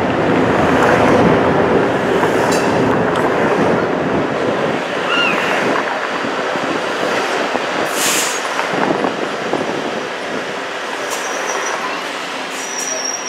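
Streetcar running along its street track, heard from aboard: a steady rumble of steel wheels on the rails with the hum of the car's motors. A brief squeal comes about five seconds in, a sharp click near eight seconds, and a thin high squeal near the end.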